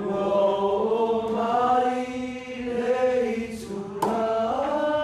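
A Samoan group of voices singing together in long held chords, moving to a new chord about four seconds in.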